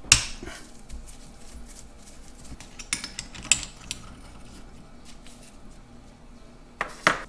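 Small metal clicks and clinks as a screwdriver works the advance cover plate off a salvaged Farmall MD distributor, with a sharp click just at the start, a few scattered ones in the middle and a louder knock near the end.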